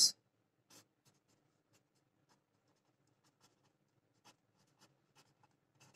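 Pen writing on paper: faint, irregular scratching of the pen strokes, with a couple of slightly louder light taps.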